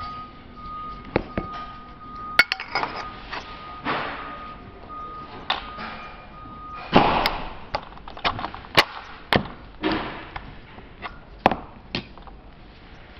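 Die-cast aluminium parts of a swivel joint clicking and knocking as they are handled and fitted together: a dozen or so sharp metallic taps, the loudest about seven seconds in.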